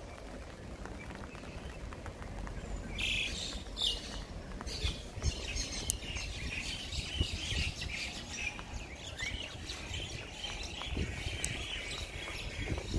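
Several birds chirping and singing from about three seconds in, over footsteps on wet pavement.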